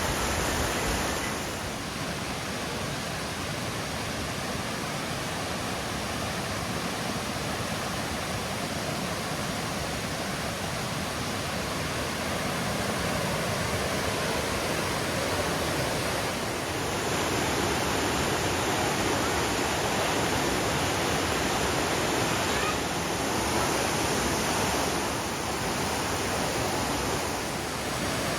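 Steady rushing of water, an even noise with no distinct events, that shifts abruptly in tone a few times.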